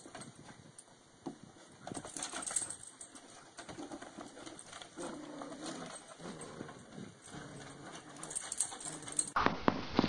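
Two dogs playing tug-of-war over a rope toy: low play growls with scuffling paws and toy on wooden boards. About a second before the end the sound cuts to louder, noisier background.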